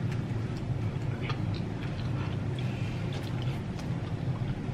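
Eating sounds: soft scattered clicks and smacks of chewing snow crab, over a steady low hum.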